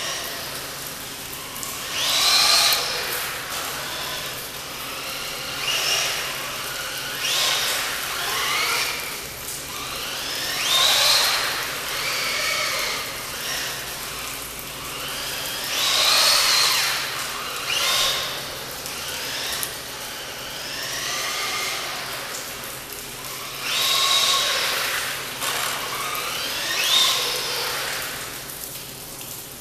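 Brushless electric motor of a WLtoys L212 PRO RC truck on a 2S LiPo, whining through repeated bursts of throttle. About eight times, the pitch climbs as the truck speeds up and then falls away.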